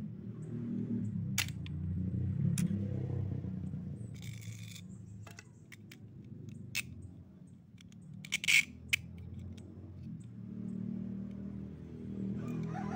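Small metal parts of an aluminium crossbow trigger mechanism clicking and scraping as they are handled, with a brief scrape about four seconds in and a loud cluster of sharp metallic clinks about eight and a half seconds in, over a steady low background hum.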